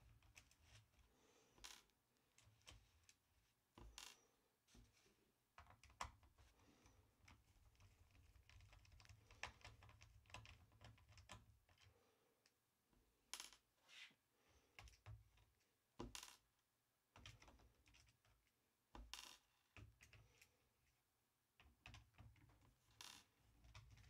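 Faint, irregular clicks and ticks of a screwdriver turning small recessed screws out of the plastic bottom panel of a Lenovo IdeaPad 310 laptop, over a low hum.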